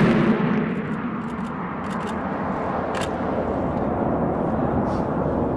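Fighter jet's engine roar heard from a distance as a steady rumble, after a louder roar fades in the first half-second. A few faint, sharp clicks are scattered through it.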